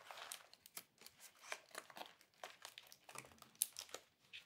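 Faint, irregular crinkling and small clicks of tape and paper being pressed and smoothed around the capped end of a homemade paper-tube rain stick as it is taped shut.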